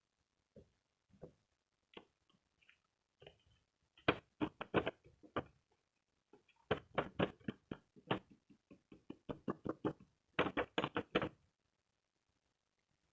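Quick runs of sharp clicks and taps from small hard plastic toy pieces being handled and set down, coming in three bursts with short pauses between.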